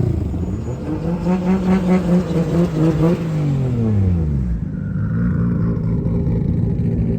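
Car engine revving up, held at high revs with a pulsing note for about two seconds, then dropping back to a steady low run.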